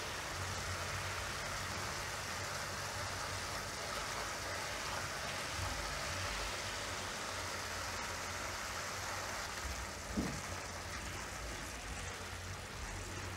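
Sugar syrup simmering in a non-stick pan, a steady bubbling hiss over a low hum, as it cooks toward one-string consistency. A single soft knock about ten seconds in.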